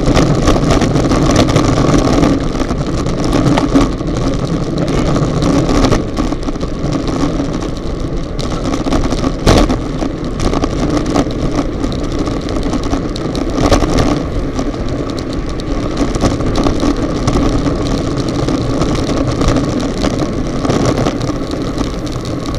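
Wind rushing over the microphone of a Contour+ action camera on a racing bicycle moving at about 40–47 km/h, with the hum of tyres on the road beneath it. A single sharp click stands out about nine and a half seconds in.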